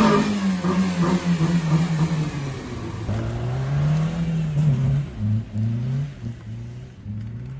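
Peugeot 307's engine pulling the car along, its pitch falling over the first two seconds or so, then rising and dropping again several times as the revs change.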